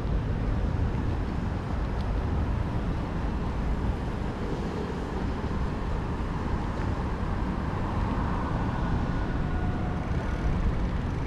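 Steady road traffic noise with a low rumble of wind on the microphone.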